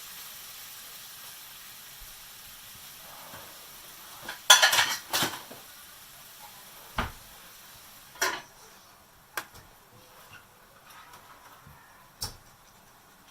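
Cookware and utensils clattering in a kitchen: a quick run of clinks and knocks about four and a half seconds in, then single knocks every second or few. A faint steady hiss of cooking fades out over the first few seconds.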